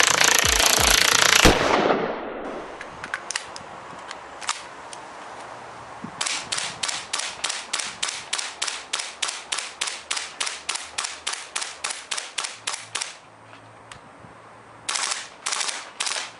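Airsoft gun firing shots in quick succession, about four a second for some seven seconds, after a few single shots; a few closely spaced shots follow near the end. A loud, dense noise at the start cuts off abruptly in the first two seconds.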